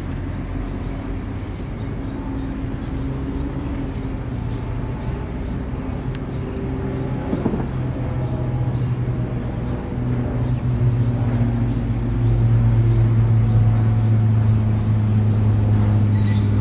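Motor vehicle engine running with a steady low hum, growing louder about two-thirds of the way through.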